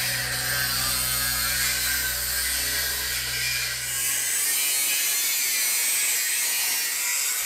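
Handheld Parkside angle grinder grinding down welds on a steel tube with a spinning disc, a steady high grinding noise.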